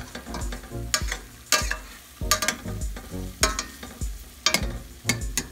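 Metal spatula knocking and scraping against a stainless steel pot in irregular strokes, about two or three a second, while stuffed eggplants sizzle in the masala over medium heat.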